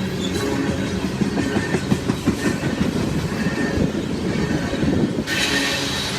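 Loaded coal train rolling past: the steel wheels of the coal cars click and clatter over the rail joints under a steady low rumble. About five seconds in, a brighter, higher sound comes in suddenly over the clatter.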